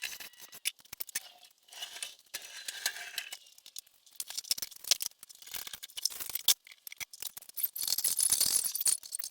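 Irregular clattering and clinking of hard metal parts being handled and knocked together, many sharp clicks and taps, with a denser scraping rustle near the end.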